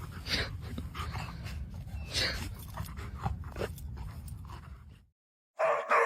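A dog making short, faint whimpering sounds over a low, steady rumble; one call falls in pitch about two seconds in. After a sudden drop to silence, a loud dog bark comes right at the end.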